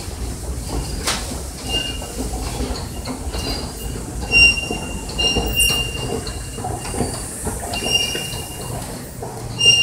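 Short, high-pitched metallic squeaks recurring every second or so over a steady low rumble, inside a subway station.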